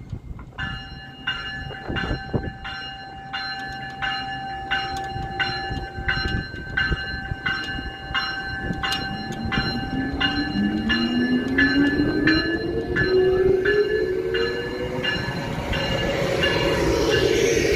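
Electric SEPTA regional rail train departing: its bell rings steadily about twice a second. From about halfway through, the rising whine of the electric traction motors climbs in pitch and grows louder as the train pulls away.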